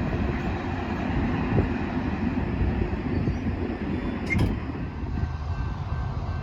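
Freight train rolling past: a steady low rumble, with a short sharp click about four seconds in.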